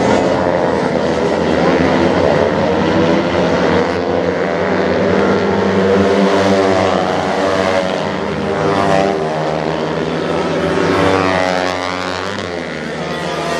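A pack of 50cc two-stroke racing minibikes (Honda NSR50/NS50 type) buzzing around a circuit, several engines overlapping at different pitches. The pitches rise and fall as the riders accelerate, shift and brake through the corners.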